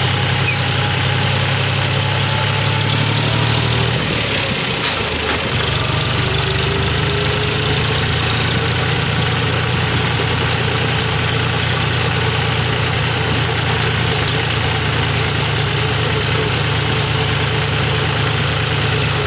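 John Deere 5036D tractor's three-cylinder diesel engine running steadily under way, heard from the driver's seat. The engine note drops and dips briefly about four seconds in, then runs steady again.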